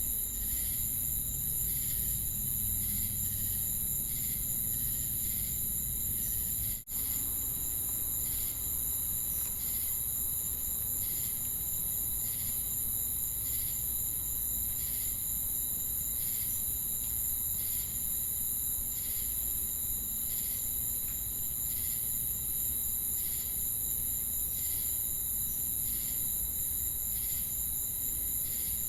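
Insect chorus of crickets and cicadas: a continuous high-pitched drone with a steady, evenly repeating pulsed trill beneath it, a little more than once a second. The sound drops out for an instant about seven seconds in.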